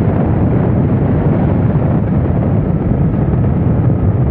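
Steady wind rush and rumble on the camera's microphone of a motorcycle riding at speed, with the motorcycle's running and road noise underneath.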